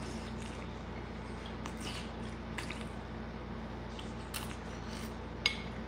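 A man eating wonton soup: mouth sounds of chewing and sipping, with a metal spoon clicking a few times against a glass bowl, the sharpest clink near the end. A steady low hum runs underneath.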